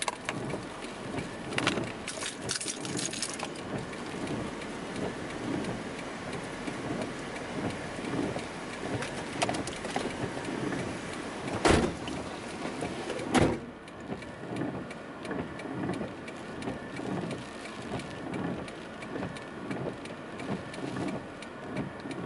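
Rain falling steadily on a stopped car, heard from inside the cabin. Just past halfway come two sharp thumps about a second and a half apart, the car door opening and slamming shut, after which the rain sounds duller.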